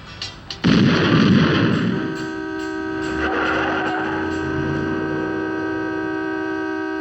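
A sudden loud explosion-like blast about half a second in, followed by a steady, unchanging horn-like blare that holds at one pitch.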